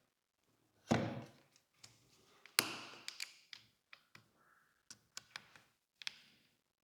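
Small taps and clicks of a camera body, its parts and small tools being handled and set down on a work surface during reassembly: a dull thump about a second in, a sharp click a little later, then a scatter of light taps.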